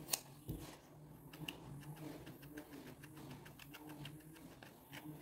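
Scissors snipping through the wool fur of a crocheted toy dog, with a sharp snip just after the start. A slicker brush then combs the wool, giving faint scratchy clicks and rustles over a faint low hum.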